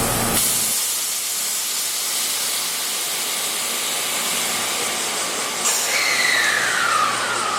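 Train wheels running on rail, making a steady high hiss; near the end a squeal slides down in pitch for about a second and a half. This is the abnormal rail noise being recorded.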